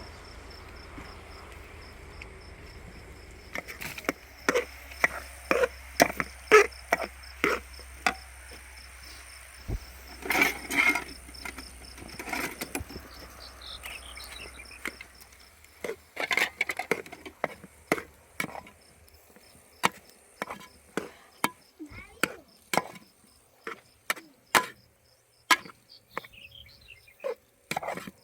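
Repeated sharp knocks, like tools striking wood, one or two a second and irregular, starting a few seconds in. Insects chirp steadily underneath.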